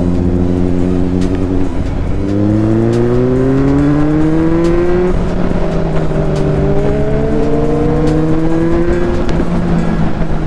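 Sport motorcycle engine pulling up through the revs twice as it accelerates, its pitch rising steadily and then dropping at each gear change, about five and nine seconds in.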